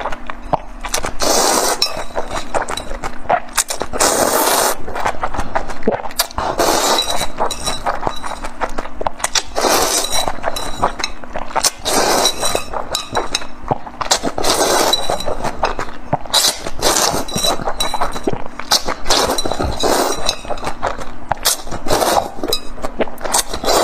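Close, loud eating sounds of black bean noodles: repeated wet slurps as the sauce-coated noodles are drawn into the mouth, every second or two, with sharp clicking and smacking sounds of chewing between them.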